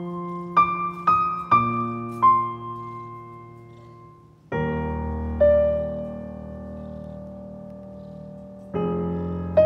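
Background piano music: a few single notes struck over a chord that fades away, then a new chord about halfway through and another near the end.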